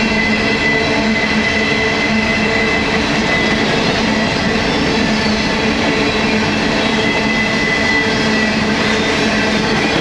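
Empty coal cars of a long freight train rolling past at trackside: a steady rumble and rattle of wheels on rail, with a steady high squeal running over it.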